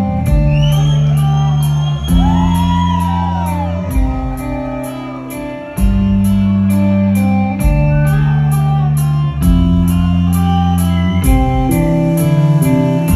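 Rock band playing live in an instrumental passage: a lead electric guitar bends and glides between notes over sustained bass notes that change about every two seconds, with steady cymbal ticks keeping time.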